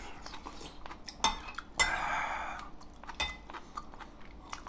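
Metal spoon clinking against a white ceramic bowl, with one short scrape about two seconds in and a few lighter clinks around it.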